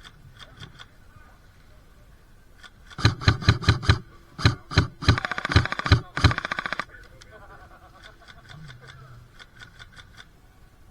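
Airsoft rifle firing: a quick string of single shots, then a rapid full-auto rattle and a short final burst, each shot a sharp clack. Fainter shots sound before and after.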